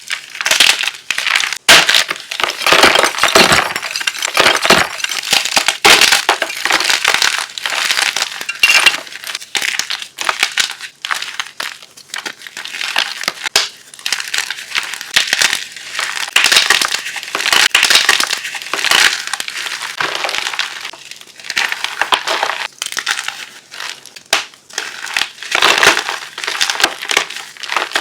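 Chunks of chalk being crushed, crunching and crumbling again and again in quick, dense, crackly crunches with short gaps between them.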